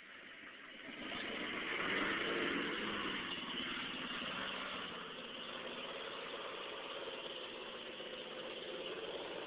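GMC Yukon's 6.5-litre V8 diesel engine pulling under load as the truck climbs a steep dirt slope, swelling about a second in and then running steady.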